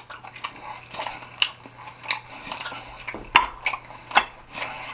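Eating utensils clinking and tapping on a plate in irregular light clicks, a few sharper ones near the middle and end.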